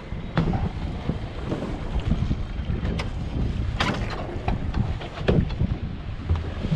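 Wind buffeting the microphone on a boat at sea, a continuous low rumble, with several sudden slaps or knocks, the strongest about four seconds in.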